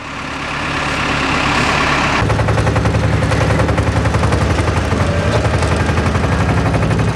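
Vehicle engine running with a fast, even rattling beat, heard from inside the cab. About two seconds in, a higher hiss drops away and the low engine note grows louder.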